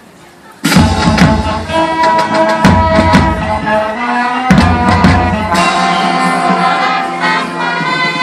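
High school marching band strikes up about half a second in: horns playing over marching percussion, with heavy drum hits at the start and twice more in the first few seconds.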